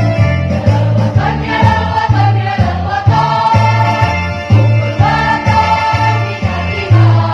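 Choir singing over an instrumental accompaniment with a steady, pulsing bass beat of about two notes a second.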